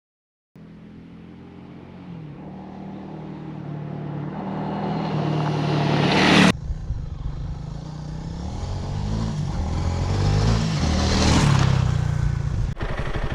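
A dual-sport motorcycle's single-cylinder engine running under way, its pitch rising and falling with the throttle, with rushing air noise. The sound builds over the first half and drops sharply about halfway through.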